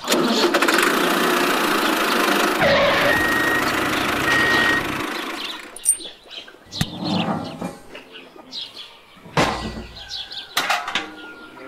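Mini tractor's motor running steadily for about five seconds, then cutting out. A few sharp clicks and knocks follow as the trailer is hitched, with some bird chirps.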